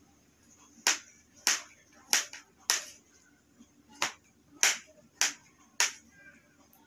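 Knife chopping melon into cubes on a cutting board: about eight sharp knocks of the blade striking the board, roughly every half second, with a short pause a little before the middle.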